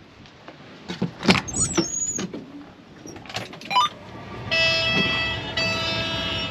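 A few sharp clunks and knocks with short squeaks. About four seconds in, background music with steady held chords comes in.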